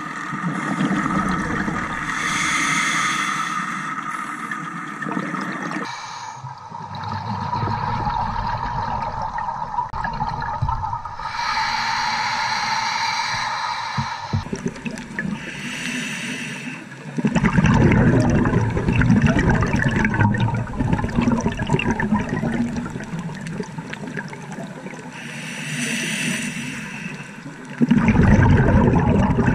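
Underwater camera audio of scuba divers breathing from open-circuit regulators: exhaled bubbles gurgle and bubble past the housing in surges every few seconds. The sound changes abruptly several times, louder near the end.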